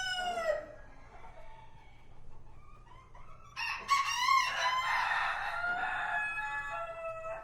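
Roosters crowing. One crow ends about half a second in; after a quieter gap, a second long crow begins about three and a half seconds in, lasts nearly four seconds and drops in pitch at its close.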